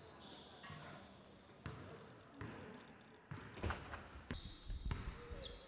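Basketball being dribbled on a hardwood gym floor: faint bounces at first, growing louder and more regular from about halfway, a little over half a second apart.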